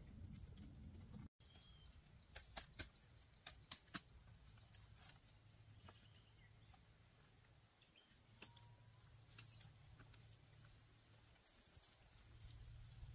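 Quiet outdoor ambience with a cluster of sharp clicks a few seconds in and a few faint, short high chirps.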